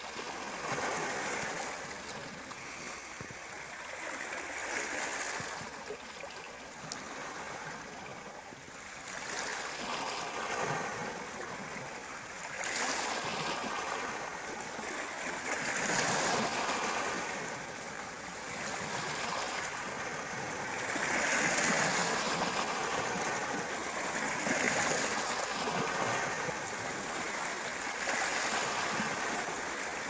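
Moving water washing continuously, swelling and easing every few seconds.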